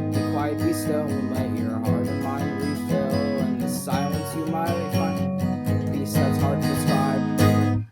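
Instrumental music led by strummed acoustic guitar, stopping abruptly near the end.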